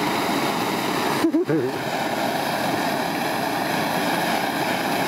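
Hand-held propane torch flame hissing steadily while it heats a can of beans and wieners. The hiss breaks off for an instant about a second in, with a brief vocal sound.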